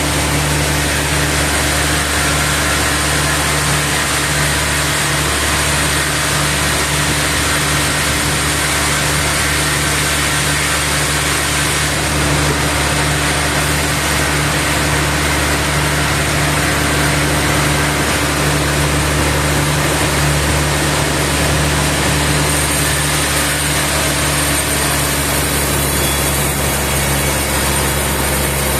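Sawmill machinery running steadily: an engine-driven machine with a constant low hum and a broad mechanical noise, its level unchanging throughout.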